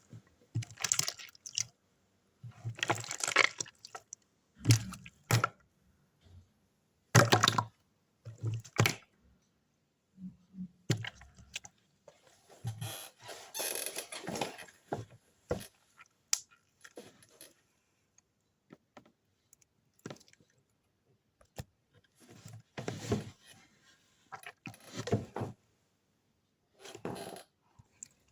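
Yellow slime being handled: irregular wet squishes and crackles in separate bursts with short quiet gaps between them.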